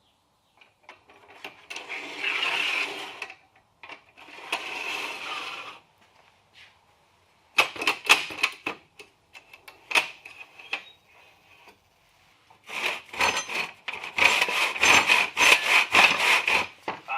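Hand tools working wood: two long scraping strokes, then a few sharp knocks, then a run of quick rasping strokes near the end.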